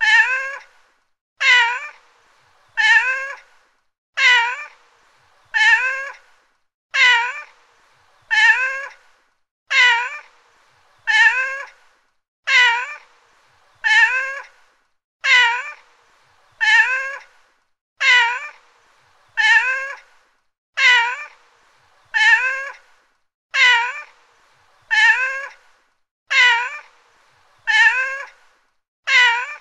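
Domestic cat meowing, the same short meow repeated evenly about every second and a half, each call's pitch dropping at its end.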